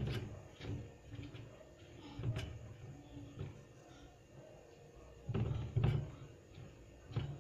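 Kitchen handling noises: scattered knocks and dull thumps as a hand works dough into a metal bowl of flour on a stainless-steel drainboard. The heaviest pair of thumps comes about five and a half to six seconds in.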